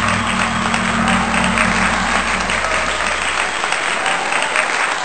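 Audience applauding, with the low held tones of the accompanying music dying away partway through.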